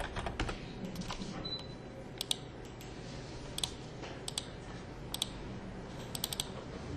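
Computer keyboard keys tapped in short, scattered runs with pauses between them, a few clicks at a time.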